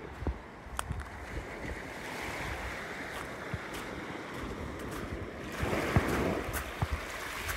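Small waves lapping and washing up a sand-and-pebble shore, with one wash swelling louder about six seconds in, and wind on the microphone.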